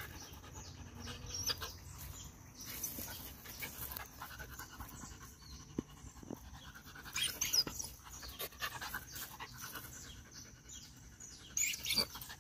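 A 16-week-old bandog puppy panting, winded after several minutes of prey-drive training. A few short rustles and scrapes come about 7 s in and again near the end.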